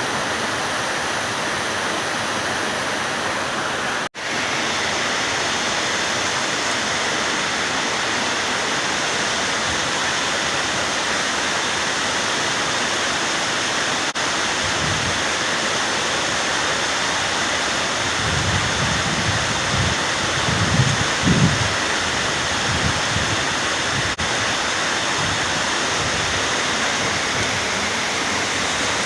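Waterfall running, a steady rush of falling water. The sound drops out briefly about four seconds in, and there is some low buffeting on the microphone about two-thirds of the way through.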